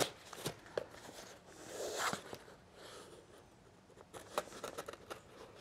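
Folding knife cutting through packing tape on a cardboard box: faint scraping and rasping strokes with a few light clicks.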